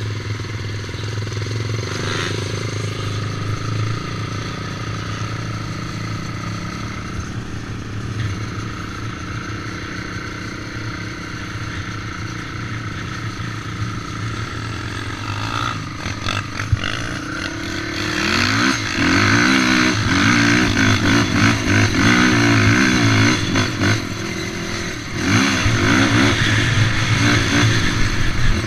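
Race quad's engine heard from on board: running steadily at lower revs through the first half, then, past the middle, revving hard with the pitch rising and falling rapidly as it accelerates and shifts, with a brief drop in level near the end.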